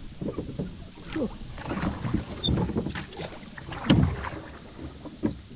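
Oars of a small rowing dinghy working in their oarlocks: repeated creaks and knocks as the oars are pulled, with water sounds from the blades. The loudest knock comes about four seconds in.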